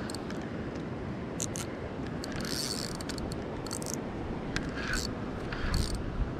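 Spinning reel being wound in by hand, with short, scattered scratchy whirrs over a steady background rush.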